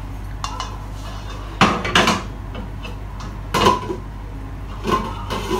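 Kitchen pots and utensils being handled: about five separate sharp clinks and knocks, the loudest about one and a half, two and three and a half seconds in, some with a short metallic ring.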